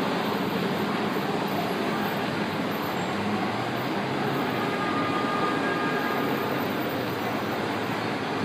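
Steady running noise of model trains moving around a large model railroad layout, mixed with the even hum of the exhibit hall.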